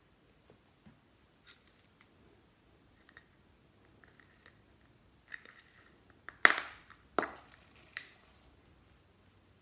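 A small plastic item being pried and torn open by hand: a few light clicks, then sharp crackling and tearing sounds about five to eight seconds in, loudest twice in quick succession.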